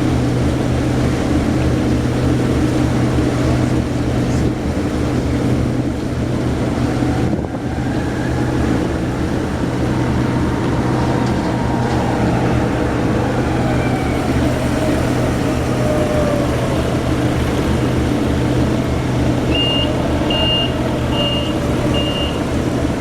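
An engine running steadily with a low, even drone. Near the end come four short, evenly spaced high beeps of a reversing alarm.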